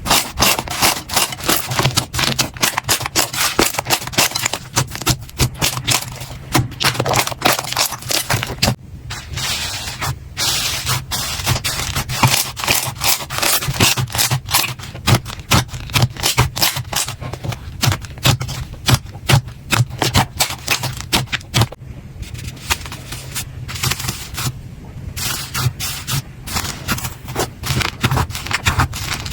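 Slime being squeezed and worked by hand, giving a dense, uneven run of wet crackles, clicks and pops with brief pauses.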